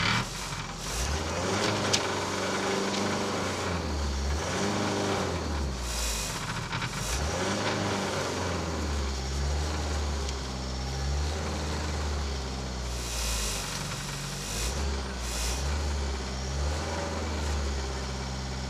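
Škoda Fabia RS TDI rally car's turbodiesel engine running, heard from inside the cabin, its revs rising and falling repeatedly.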